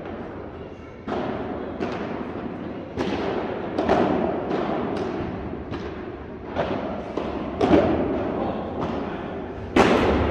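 Padel rally: a padel ball struck back and forth with rackets and bouncing, heard as a string of sharp pops every half second to a second, echoing in a large hall. The loudest hit comes near the end.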